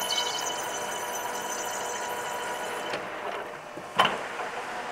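Metal lathe running while a threading tool cuts a thread pass on a stainless steel tube, giving a steady high whine and hiss that stops about three seconds in. A sharp click about four seconds in.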